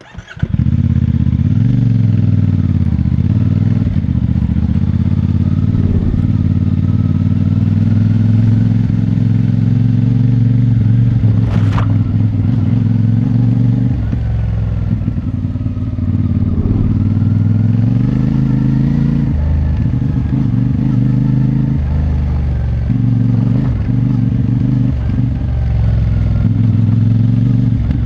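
CFMoto 450MT's parallel-twin engine on its stock exhaust, running at low, fairly steady revs with gentle rises and dips as the bike is ridden. A single sharp click about twelve seconds in.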